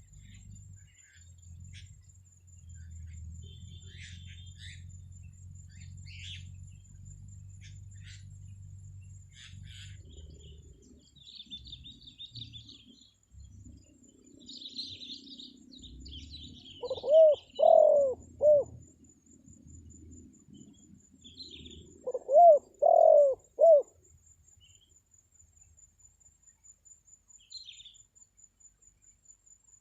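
Spotted dove (tekukur) cooing its lure call: two three-note coo phrases about five seconds apart, in the second half. Small birds chirp faintly in the middle, and a low rumble fills the first third.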